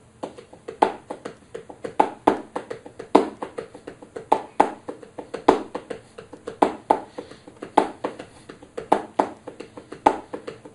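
Sonor bongos played in a steady funk-rock groove: a quick run of light fingertip taps on heads damped by the resting hand, with louder muffled slaps on the backbeats (beats 2 and 4), accented about once a second.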